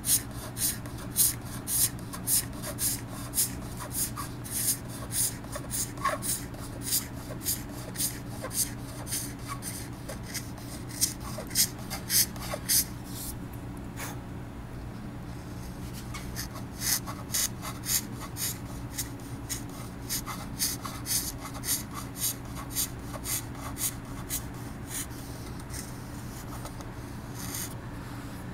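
Homemade hand scraper drawn along a guitar body's binding in short scraping strokes, about two a second, taking the sunburst colour coat off the binding. The strokes pause for about two seconds midway, then carry on.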